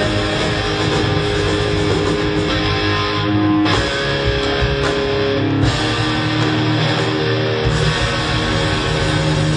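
Live rock band playing: amplified electric guitars strumming chords over bass and drums. For a couple of seconds midway the cymbals and drums drop away, leaving held guitar chords ringing, before the full band comes back in.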